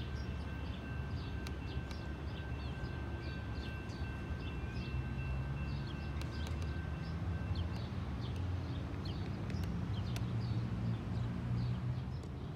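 Small birds chirping repeatedly over a steady low rumble of nearby road traffic, with a faint steady high tone that stops about seven and a half seconds in.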